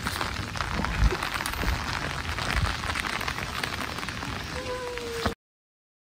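Outdoor rain ambience: light rain falling, an even hiss with many small drop clicks, and low thumps about one second and two and a half seconds in. A short faint tone sounds just before everything cuts off suddenly near the end.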